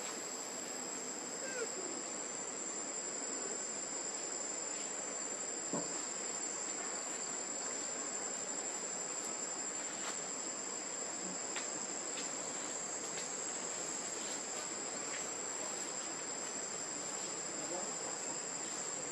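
Steady, high-pitched drone of an insect chorus, with a few faint ticks.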